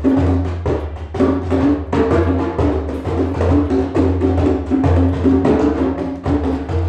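Djembe hand drums played in a busy, fast rhythm: sharp hand strokes over deep bass tones, fading out near the end.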